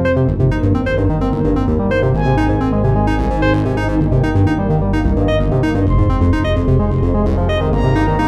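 Samsung Galaxy phone ringtone playing: an electronic synthesizer melody over a steady beat.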